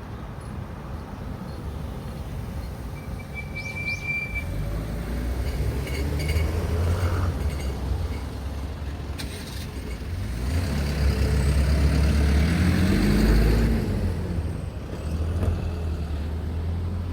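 Road traffic: motor vehicles driving past and pulling away, loudest in the second half. A short high squeal comes about three seconds in, and one engine rises and then falls in pitch near the end.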